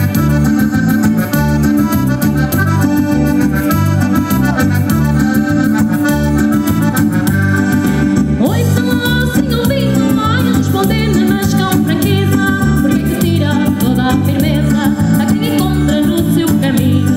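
Live band playing a Portuguese popular song: an accordion-toned lead over electric bass, guitar and a steady drum beat, with a woman starting to sing about halfway through.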